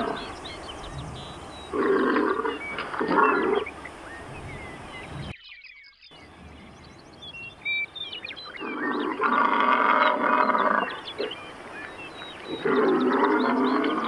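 Bison bull bellowing: four deep, drawn-out roars, two in quick succession near the start and two more in the second half. Small birds chirp faintly between the calls.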